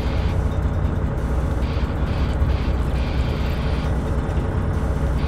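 Steady low drone of a fishing boat's engine running, with wind and sea noise on deck.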